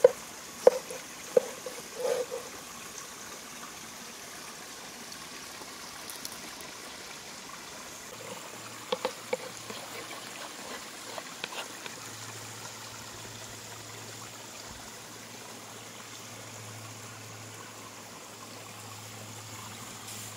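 Steady rushing of flowing water, like a stream, with a few loud, sharp clicks in the first two seconds and a few fainter ones around the middle.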